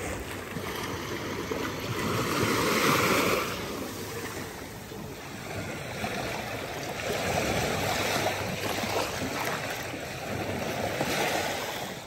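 Small sea waves lapping and washing over rocks at the shallow water's edge, a steady wash that swells louder twice.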